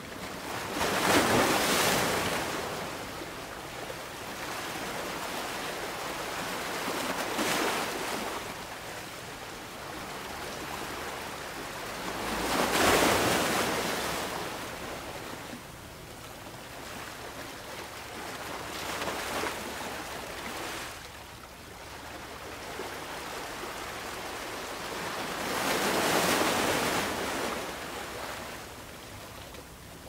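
Ocean waves breaking on a beach: the surf swells and washes in about every six seconds. The three biggest breakers come near the start, in the middle and near the end.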